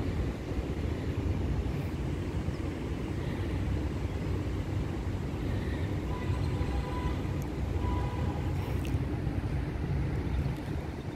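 Steady low rumbling background noise, with a few faint short tones about six and eight seconds in.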